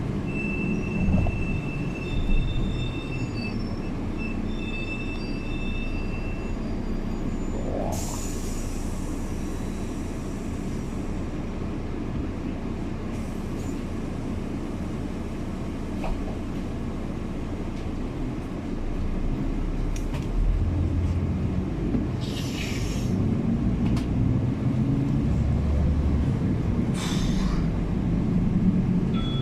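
Ride inside a moving city bus: a steady low rumble, with a high squealing whine through the first several seconds and three short hisses, about 8 seconds in and twice near the end.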